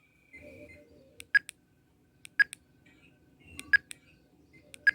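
Tidradio TD-H3 handheld radio's keypad beeping as its buttons are pressed to scroll through the menu: four short, sharp beeps roughly a second apart, with fainter clicks and tones between them.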